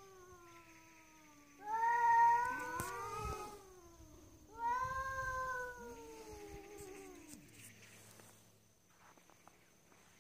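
Two cats yowling (caterwauling) at each other in long, wavering, drawn-out calls that sag in pitch as they end. One yowl starts just under two seconds in and another about four and a half seconds in. The sound is typical of a standoff between two cats.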